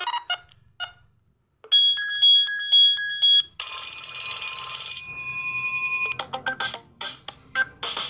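Ringtone previews played through the phone speaker of an Alcatel OT-991D, one after another, each cut off when the next is selected: a short melodic snippet that stops about a second in, then a repeated electronic beep pattern, a held synth tone, and from about six seconds a fast rhythmic beat.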